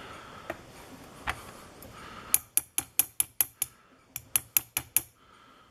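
Small metal mechanism clicking in two quick even runs of about five sharp clicks a second, with a short pause between them, like a ratchet or detent being worked during lock disassembly.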